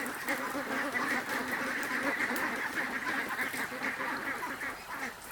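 A flock of ducks quacking without pause, many calls overlapping.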